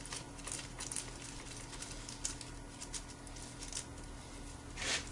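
Faint small clicks, ticks and rustling of hands picking tiny screws and washers out of a parts bag, with a louder rustle near the end.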